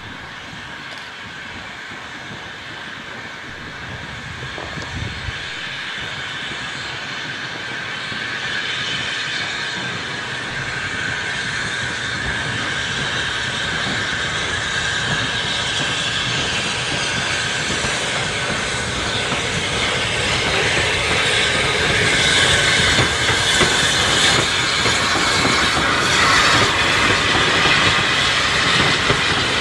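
Steam-hauled passenger train approaching and passing close by, a saddle-tank locomotive with its coaches, the noise of the engine and the wheels on the rails growing steadily louder as it nears and loudest as the coaches go past near the end.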